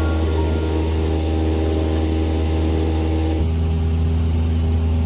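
Single-engine light aircraft's piston engine and propeller droning steadily in cruise, heard from inside the cabin; the tone shifts slightly about three and a half seconds in.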